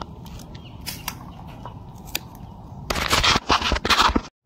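Sharp snips of scissors cutting the fruit-laden branchlets off a queen palm's flower stalk: a few separate clicks, then a louder second of dense crackling about three seconds in that cuts off abruptly.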